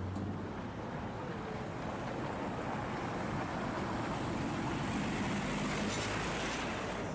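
Heavy goods vehicle's diesel engine running, over a steady rushing of traffic noise that grows louder past the middle and eases near the end, as of a lorry moving past.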